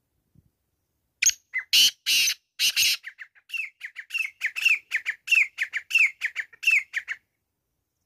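Male black francolin calling: a few loud, harsh notes, then a quick run of short down-slurred notes at about four a second, stopping a little after seven seconds in.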